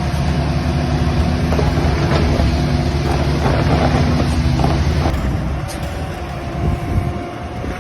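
Excavator diesel engine running steadily. About five seconds in the sound changes and eases, and a thin steady whine comes in.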